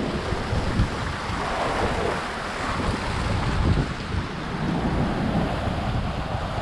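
Rhine Falls waterfall: a steady rush of falling water, with some wind buffeting the microphone.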